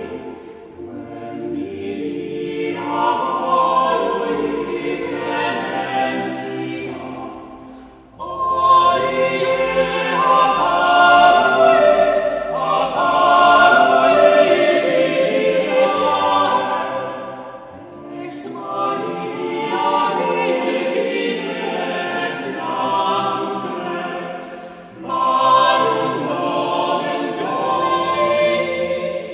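Small chamber vocal ensemble singing unaccompanied polyphony: several voices hold overlapping sustained lines. The phrases break off briefly about 8, 18 and 25 seconds in, and each time the voices come back in together.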